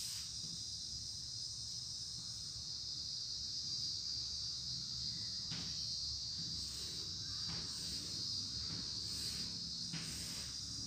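Steady high-pitched trilling of crickets, with a few faint scrapes of chalk on a blackboard as lines are drawn.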